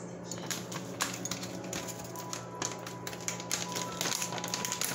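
Quick, irregular clicks and rustles of plastic food pouches and bags being handled, with music playing underneath and one note held through the middle.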